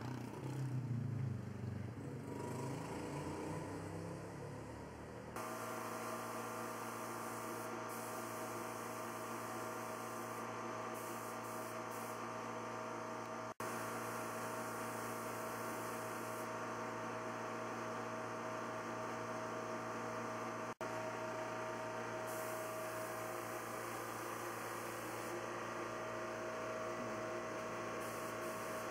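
From about five seconds in, a steady mechanical hum with several fixed tones, typical of an air compressor motor running, under the hiss of a siphon-feed spray gun that starts and stops several times as the trigger is pulled and released.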